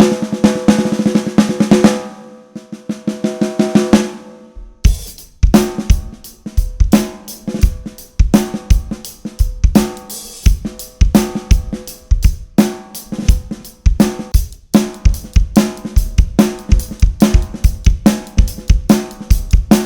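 Unmuffled snare drum, with no pad on its head, played in fast rolls that ring with many overtones and fade down over the first few seconds. From about five seconds in it plays a full drum-kit beat: bass drum kicks under the ringing snare hits.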